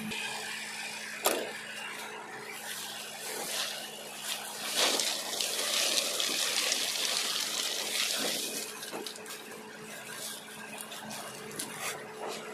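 Sacks of tube ice being handled: a plastic liner and woven sacks rustling and crinkling, loudest about halfway through, over a steady low hum.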